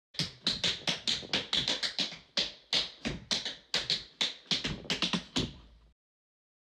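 A quick, uneven series of sharp taps, about four a second, that stops about six seconds in.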